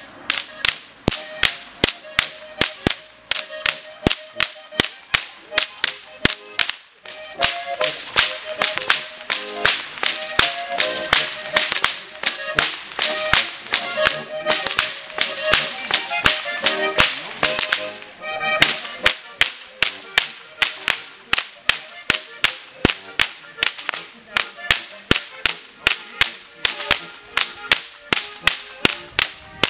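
Goaßl whips cracked in a steady rhythm, about three sharp cracks a second, in the Bavarian Goaßlschnalzen style, with an accordion playing a tune underneath.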